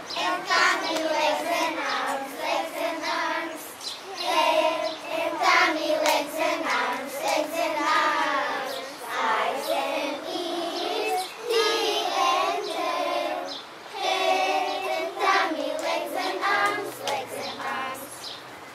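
A group of children singing a song together in chorus, the children's voices fairly high and carrying on without a break.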